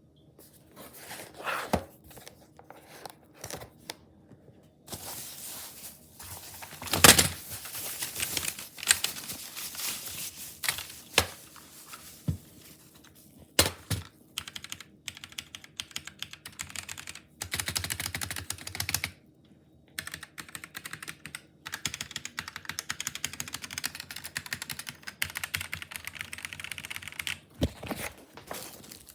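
Magegee MK Box mechanical keyboard with red linear switches being typed on: a patter of keystrokes in irregular runs, some fast, with short pauses and a few louder clacks about seven and fourteen seconds in.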